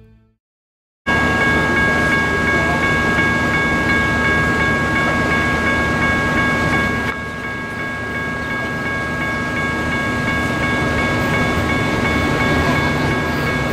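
Grade-crossing warning bells ringing steadily over a constant rumble of traffic and an approaching train, starting suddenly about a second in.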